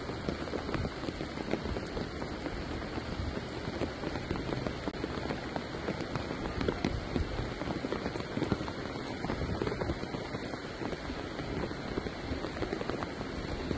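Steady rain falling: an even hiss dotted with many small, sharp drop hits close by.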